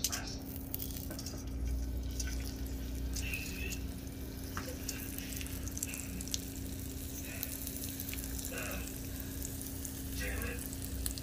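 Thick smoked steaks searing in a hot cast-iron skillet: fat sizzling with fine crackling pops, starting at once as the first steak is laid in the pan.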